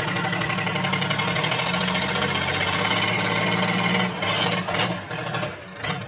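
Second-hand diesel engine running with a fast, steady clatter, dipping in level briefly twice near the end.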